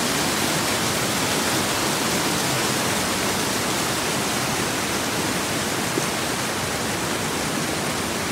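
Mountain stream rushing over boulders in small cascades of white water: a steady, even rush.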